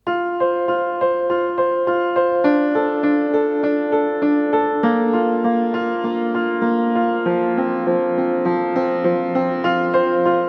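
Background music: a piano playing a steady repeating pattern of notes, changing chords every couple of seconds.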